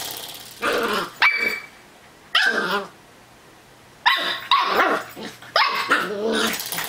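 Cocker spaniel puppy barking and growling in bursts as he plays with a spring door stop, with a quiet pause in the middle. About a second in, a sharp click and a short ringing twang, typical of the door stop's spring being flicked.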